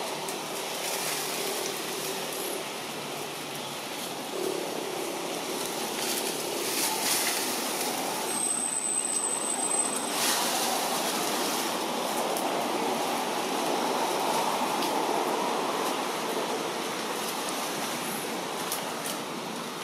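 Steady rushing outdoor background noise, with a thin high tone lasting about two seconds from about eight seconds in.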